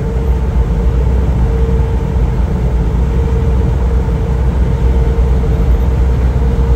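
Cabin noise of a 1995 Land Rover Discovery driving at highway speed on a wet road: the 200Tdi turbo-diesel's steady drone and tyre and road rumble, with a steady whine over it.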